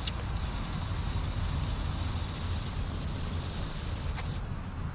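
120-grit sandpaper scratching over a motorcycle wheel hub. A dry, hissing rasp starts about halfway through and cuts off sharply near the end, over a steady low rumble.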